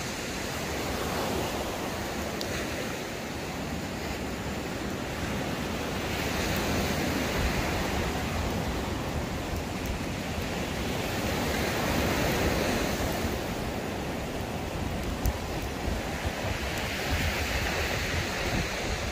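Sea surf washing in on a pebble beach, swelling and easing back about every five seconds, with wind buffeting the microphone.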